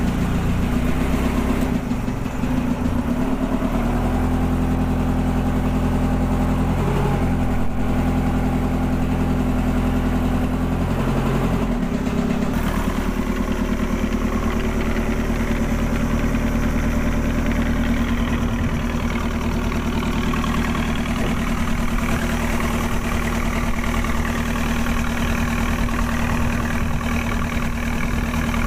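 Fishing boat's engine running, its speed and pitch shifting a few times in the first dozen seconds, then running steadily as the boat gets under way.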